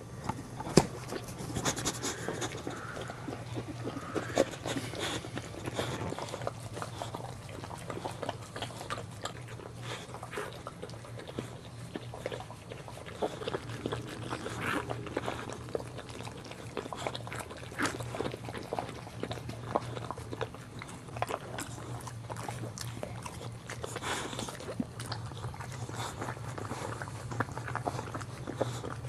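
Boxer mother licking and mouthing her newborn puppy just after delivering it in its amniotic sac: a continuous run of irregular wet licking clicks and smacks over a steady low hum.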